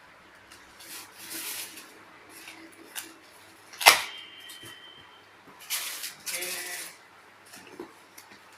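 Handling noises from unpacking a laptop box: brief rustles and scrapes of packaging, with one sharp click just under four seconds in that is the loudest sound.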